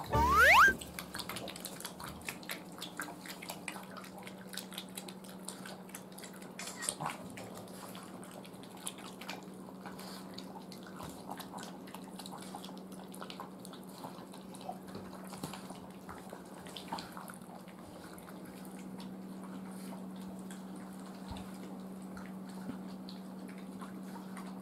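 A puppy lapping water from a bowl: many small irregular wet clicks and splashes. It opens with a short, loud rising whistle-like sound, and a faint steady low hum runs underneath.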